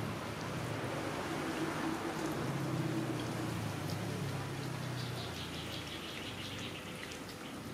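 Puppies and a dog chewing and smacking as they eat cooked rice from a plastic tray, a patter of small wet clicks, busiest in the second half. Underneath is a steady low hum that fades after about four seconds.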